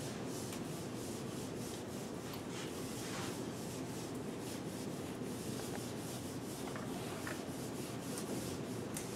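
A whiteboard eraser wiping across a whiteboard: a steady rubbing sound made of repeated back-and-forth strokes.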